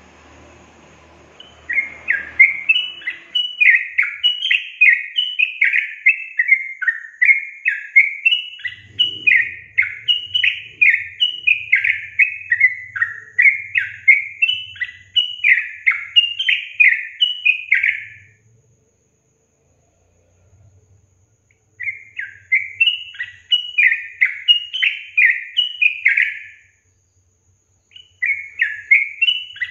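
Yellow-vented bulbul (trucukan) singing a rapid, bubbly run of repeated notes, about three a second, used as a lure song to provoke other bulbuls into singing. The song breaks off twice for a couple of seconds and starts again.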